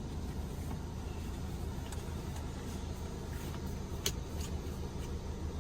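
A steady low hum, with a single light click about four seconds in.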